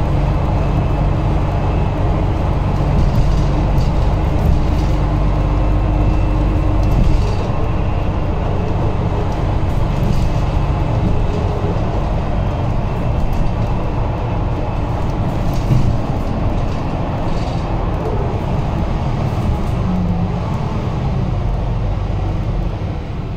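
Mercedes-Benz Conecto G articulated bus under way, heard from the passenger cabin: a steady engine and drivetrain hum mixed with road noise and light interior rattles, the hum getting quieter near the end.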